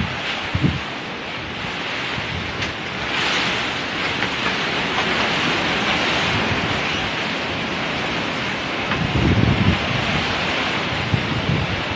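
Strong wind blowing in gusts, with low rumbling buffets of wind on the microphone, heaviest about nine to ten seconds in.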